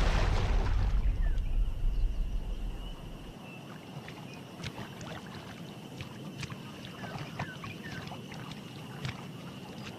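A loud low rumble dies away over the first three seconds and cuts off. It gives way to marsh ambience: a steady high drone with scattered short chirps and clicks.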